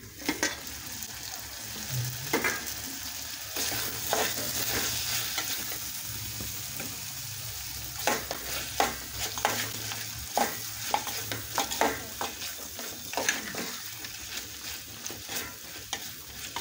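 Beef stew sizzling in a metal pot as a metal spoon stirs it, the spoon scraping and clicking against the pot again and again, more often in the second half.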